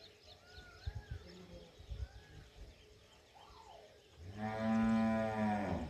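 A long, low animal call at a steady pitch, starting about four seconds in and lasting about a second and a half. Small birds chirp repeatedly before it.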